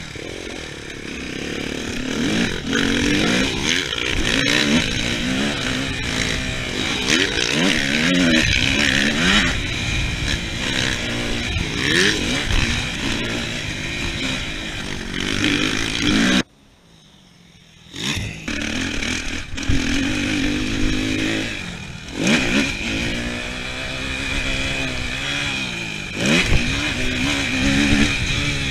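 Suzuki RM-Z250 four-stroke single-cylinder motocross bike revving hard under riding load, its pitch climbing and falling again and again as the rider accelerates, shifts and backs off. The engine sound drops away for about a second and a half just past the middle, then picks up again.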